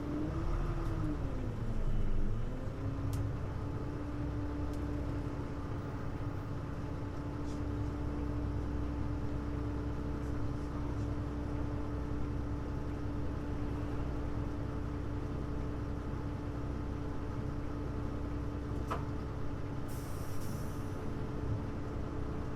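Interior running sound of a Hino U-HU2MLAA city bus, a unit singled out for its unusual running noise. A steady low drivetrain rumble carries a constant whine, which falls and rises again in pitch over the first couple of seconds, then holds steady. A short hiss of air comes near the end.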